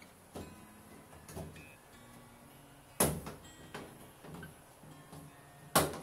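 Knocks and clicks as a plastic rat guard is pushed and snapped onto the base of a Sharp automatic washing machine. Two loud, sharp knocks come about three seconds in and near the end, with lighter taps between.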